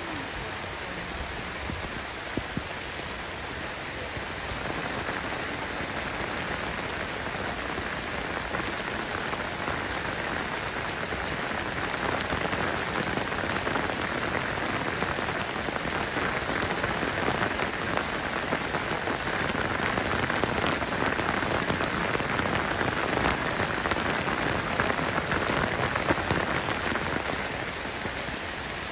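Torrential downpour: heavy rain pelting steadily onto the ground and surroundings. It grows heavier about five seconds in and eases a little near the end.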